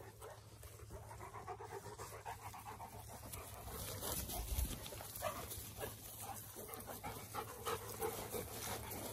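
Cane Corso dogs panting close by, quick rhythmic breaths that grow louder about four seconds in, with a low thump about halfway through.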